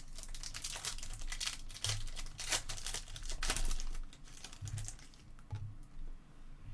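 Foil trading-card pack wrapper crinkling and being torn open by hand, a dense run of quick crackles that thins out after about four seconds.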